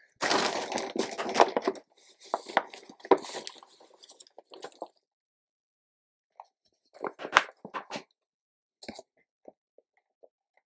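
Damp potting compost tipped into a clear plastic storage tub, a dense crumbly rustle for about a second and a half. Scattered crunches, taps and rustles follow as the soil is broken up and pressed down by hand against the plastic.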